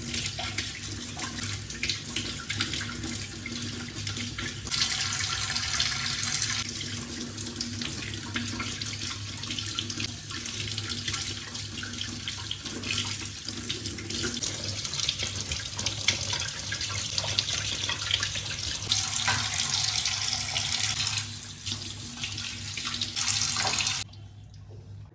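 Kitchen tap running into a sink while raw chicken pieces are rubbed and rinsed under the stream, the splashing changing as the hands move the meat. The water stops about a second before the end.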